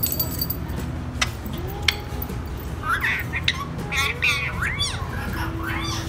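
Indian ringneck parakeet chattering in short chirping calls through the second half, with scattered sharp taps as it pecks at its reflection in a steel bowl.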